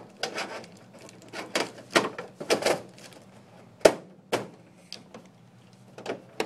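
Scattered knocks, clicks and clatter of hard parts being handled while putting a flat-screen TV back together, with one sharper knock about four seconds in.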